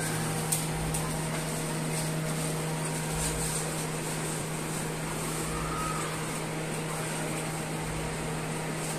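Steady low mechanical hum, with a few faint clicks and rustles as foam takeaway boxes are handled.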